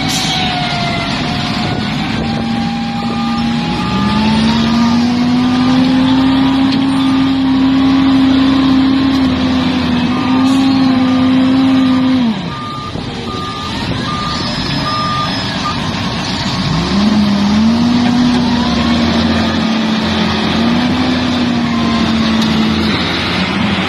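Heavy diesel machine engine revving up and holding under load, dropping back about halfway through, then revving up again. A reversing alarm beeps steadily through the first two-thirds, then stops.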